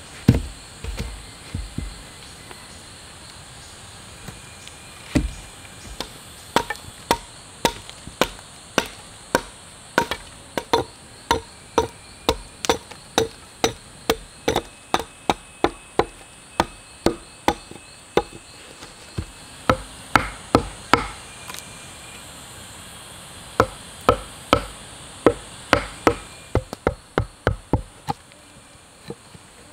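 Repeated chopping strokes of a tool striking wood, about two a second, pausing briefly a little past two-thirds of the way through before resuming. Insects buzz steadily underneath.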